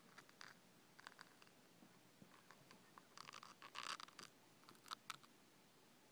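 Faint rasping strokes of a long-haired cat licking its fur, coming in short runs, the longest and loudest about three to four seconds in.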